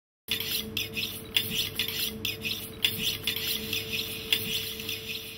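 Quick, light clinking and rattling taps, several a second and unevenly spaced, over a steady hum, starting suddenly out of silence.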